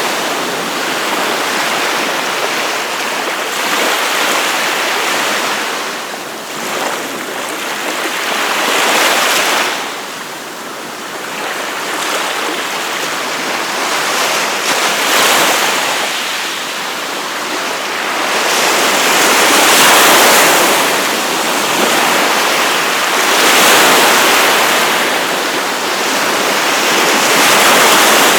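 Gulf of Mexico surf: waves breaking and washing up the beach, a continuous rush of water that swells and falls back every few seconds.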